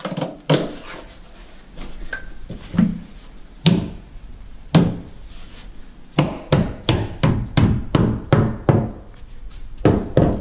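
Rubber mallet tapping laminate stair flooring into place: a few separate knocks, then a quick run of about a dozen taps at roughly three a second, and two more near the end.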